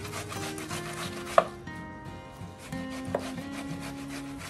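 Watermelon being grated by hand on a metal box grater into a plastic tub: quick repeated grating strokes, with a sharp knock about a second and a half in and another about three seconds in.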